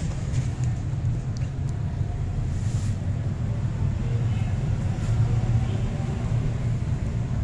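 A steady low mechanical rumble with a hum, and a few faint clicks over it.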